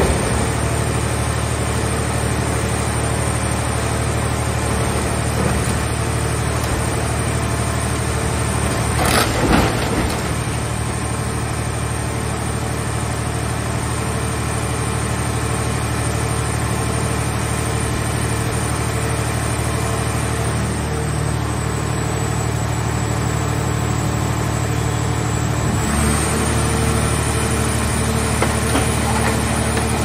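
Hydraulic car-shell baler running steadily under load, its power unit humming as the press lids fold down and compact a scrapped car body. A short, loud burst of clatter about nine seconds in, and the hum shifts slightly near the end.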